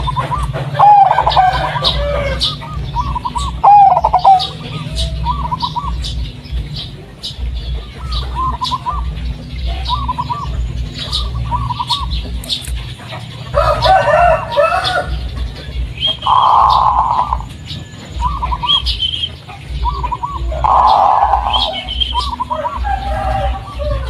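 Zebra dove (perkutut, the 'Blorok Madu' type) singing, a run of short rolling coos repeated about once a second. A few louder, harsher bird calls break in, with scattered high chirps from small birds and a steady low hum underneath.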